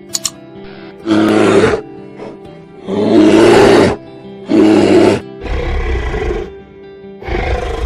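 A big cat roaring five times, each call about a second long, the last two lower in pitch, over background music with held notes.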